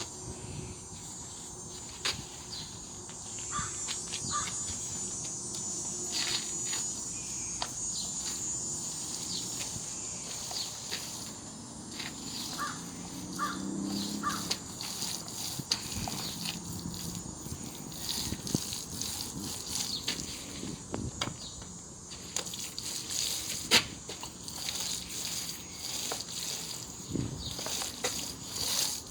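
Outdoor ambience of insects chirping steadily, with scattered light clicks and taps and a few short chirps around the middle.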